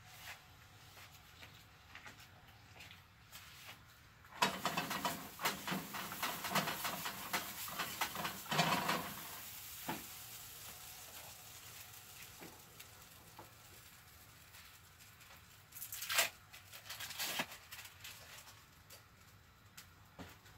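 Fork beating eggs in a small bowl: a quick rattle of clinks and scrapes for about five seconds, then another short spell later on.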